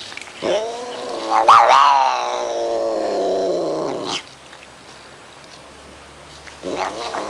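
A cat giving a long drawn-out yowl that rises in pitch and then slowly falls, lasting about three and a half seconds. A second yowl starts near the end.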